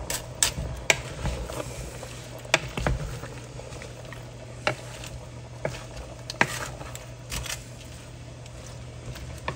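Wooden spoon stirring chicken and vegetables in a metal pot, with irregular knocks and scrapes of the spoon against the pot over a soft cooking hiss and a steady low hum.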